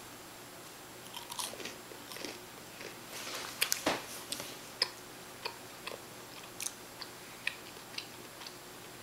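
Biting into and chewing a crisp baked pita chip: a string of sharp, irregular crunches, the loudest near the middle.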